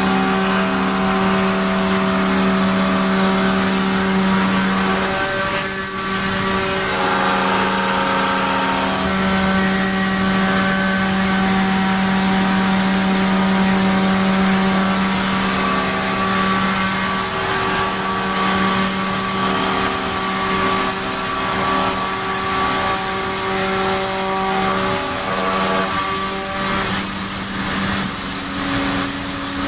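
CNC router-bit profile cutter running: the high-speed spindle gives a steady whine while the small router bit cuts a curved profile through a stack of wooden boards. Higher overtones shift and come and go as the cut goes on.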